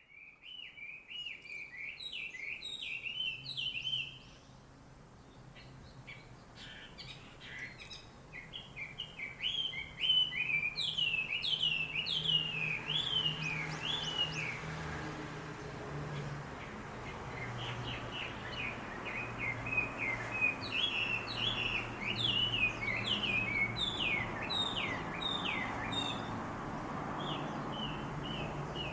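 A flock of small birds chirping and singing together in a tree, runs of short quick falling notes overlapping one another: a morning dawn chorus. A low steady hum sits underneath.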